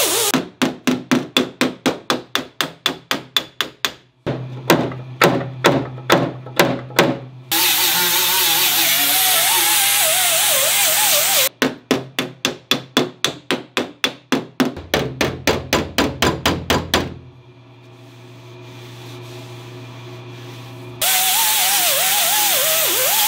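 Hammer-and-dolly work on the steel rear fender of a 1967 Porsche 911: runs of sharp metal-on-metal hammer blows, at about four to five a second and in one run about three a second, knocking down the shrinkage dip along the butt welds. Between the runs a grinder runs on the weld seams with a wavering whine, starting again near the end.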